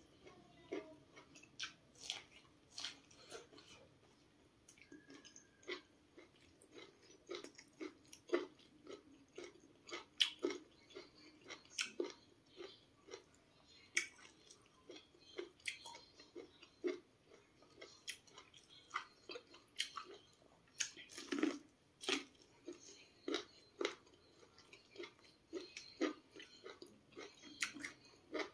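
A person biting kernels off a cob of sweet corn and chewing them: short, irregular mouth clicks, about one or two a second.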